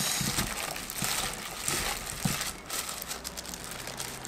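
Plastic-gloved hand rubbing sticky soy glaze into cooked chicken drumettes in a glass bowl: the disposable glove crinkles and the coated meat squishes wetly, an irregular rustling.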